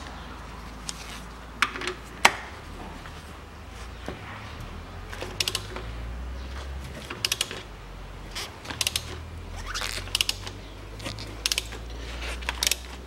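Ratchet handle clicking in short bursts as it works a cup-type wrench on the over-tightened oil filter of a 2008 Toyota Yaris 1.3 engine, with a couple of sharp metallic knocks about two seconds in. A steady low hum runs underneath.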